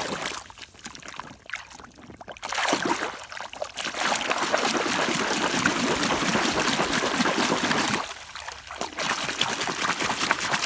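A muddy toy car being washed by hand in pond water: scattered splashes and sloshing, then about five seconds of steady, vigorous splashing in the middle, before the splashing turns broken again.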